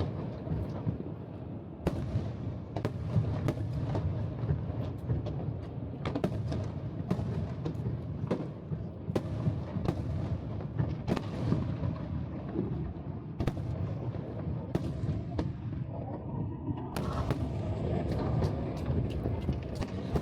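Aerial fireworks shells bursting in a rapid, overlapping barrage, many sharp bangs over a continuous low rumble.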